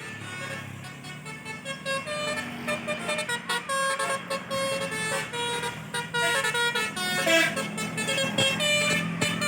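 Bus 'telolet basuri' musical air horn playing a melody of short notes that step up and down in pitch, getting louder toward the end.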